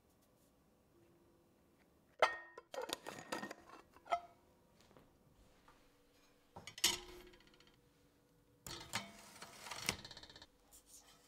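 Sharp clicks and knocks of kitchen things being handled and set down on a counter, then near the end a dry, crackly rustling as a crusty sourdough loaf is set on a woven rattan tray.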